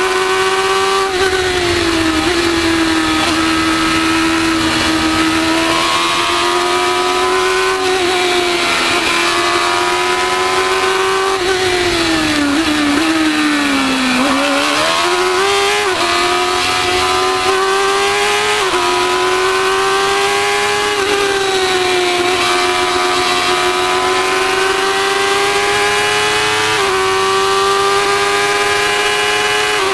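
Formula 1000 race car's 1000cc motorcycle engine running hard at high revs, its pitch stepping briefly at several points as the gears change. About halfway through, the revs fall as the car slows into a corner, then climb again.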